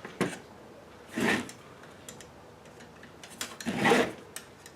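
Handling a car radio's metal casing while taking it apart: a sharp click, a clunk a little over a second in, a few light ticks, then a louder clunk near the end.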